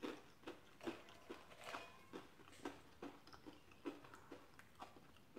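Faint chewing of a mouthful of chili and Frito corn chips, with soft wet mouth smacks about twice a second.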